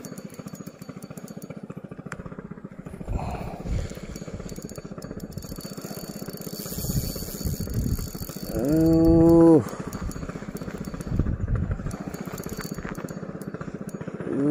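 A small engine running with a steady low pulse, revving up briefly and holding a higher note for about a second, about eight and a half seconds in and again at the very end.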